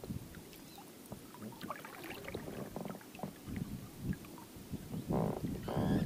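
Inflatable boat being rowed: irregular water sloshing and low knocks from the oars, with two short buzzing creaks about five seconds in.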